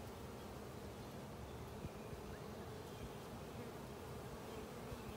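Steady buzzing hum of a honeybee colony from an open hive, bees crawling over a lifted brood frame and flying around it.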